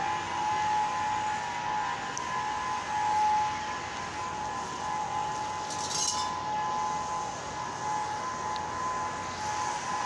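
Civil defense outdoor warning siren sounding a steady, unbroken tone during its scheduled test, over a low haze of city traffic.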